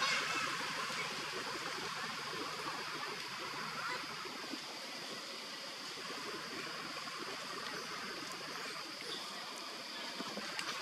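Steady outdoor background hiss, an even rushing noise with a faint high steady tone over it, and no clear monkey calls.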